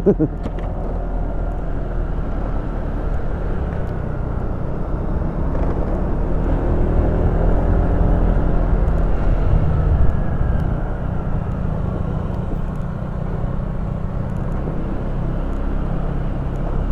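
Motorcycle being ridden: the engine runs over a steady low rumble, and its note rises and then falls around the middle.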